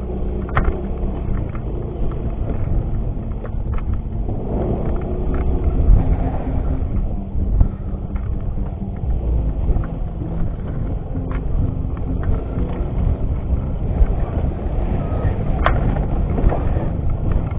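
Yamaha X-Ride 125 scooter's single-cylinder engine running steadily while riding a bumpy dirt track, with a few sharp clicks and knocks over the bumps.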